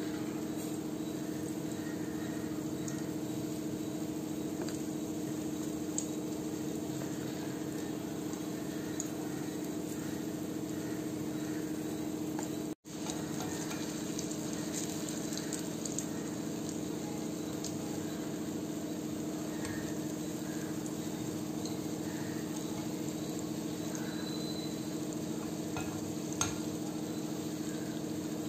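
Spoonfuls of dosa batter sizzling as they deep-fry in hot oil in an iron kadai, with a few light clinks of a steel spoon against the pan and a steady hum underneath. The sound breaks off for an instant near the middle.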